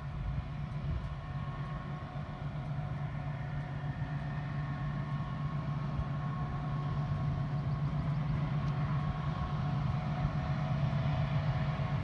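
Diesel locomotives of an approaching freight train, a steady low drone that slowly grows louder as the train nears.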